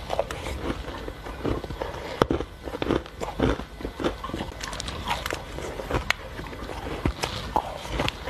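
Close-up crunching and chewing of a mouthful of shaved ice: dense, irregular crisp crackles, with a few sharper clicks, the clearest about two seconds in.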